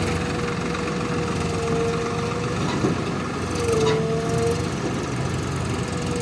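A JCB backhoe loader's diesel engine running steadily, with a whine that wavers up and down in pitch. Two brief knocks come about three and four seconds in.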